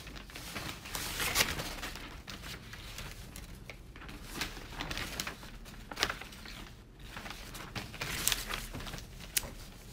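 Rustling and scattered soft clicks of handling noise in a small room, over a steady low hum.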